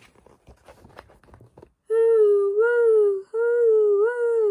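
A woman's voice imitating the howling wind of a snowstorm with long, wavering 'hoooo woooo' calls, starting about two seconds in. Before the calls, a book page turning rustles softly.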